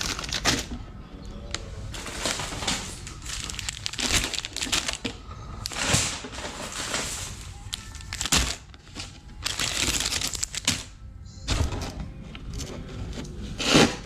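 Plastic food wrappers crinkling and rustling as hands move packets around inside a cardboard box, with irregular louder crackles and bumps, and music in the background.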